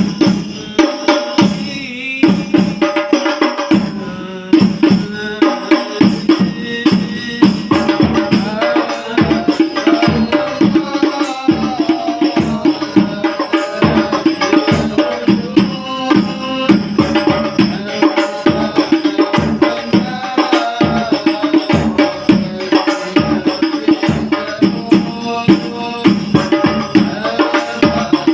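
Rebana frame drum ensemble playing a fast, dense, repeating rhythm, with voices singing over the drums.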